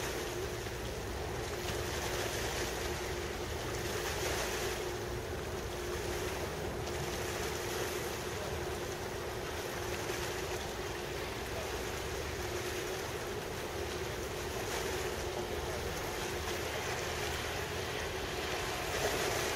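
Wind gusting across the microphone over choppy harbour water, swelling every couple of seconds, with a steady low machinery hum underneath.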